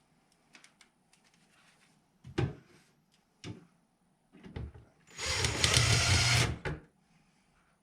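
A few separate knocks, then a power drill runs for about a second and a half.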